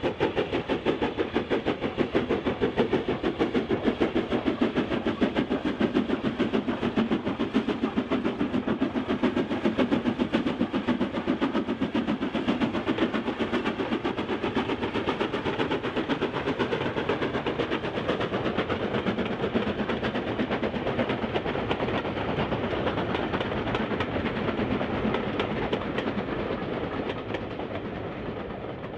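Steam locomotive hauling a train of coaches, working hard with a fast, regular chuffing exhaust beat. The beat fades away over the last few seconds as the train draws off.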